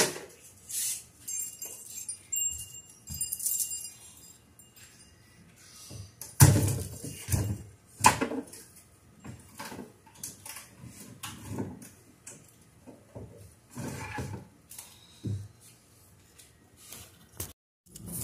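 Metal tube wind chime tinkling for a few seconds, then a series of knocks and thumps as pieces of scrap wood are dropped and shifted into a plastic wheelie bin, the heaviest thump about six seconds in.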